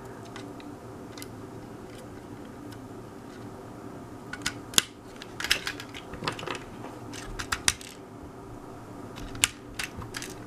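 Lego plastic pieces clicking and clacking as wheels are fitted and the model is handled: scattered sharp clicks, some in quick clusters, from about four seconds in, over a low steady hum.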